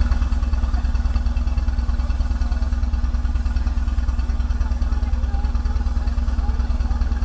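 A moored boat's inboard engine idling: a steady low throb with a hum above it.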